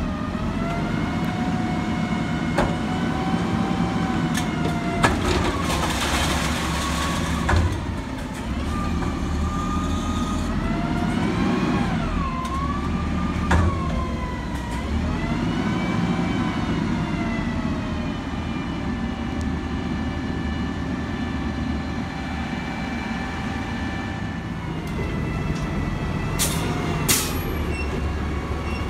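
Autocar ACX garbage truck's diesel engine revving up and down, with a hydraulic whine that rises and falls with it as the McNeilus Atlantic front loader's arms work the Curotto Can. There are a few metal clanks, a broad hiss about six seconds in and a short burst of air hiss near the end.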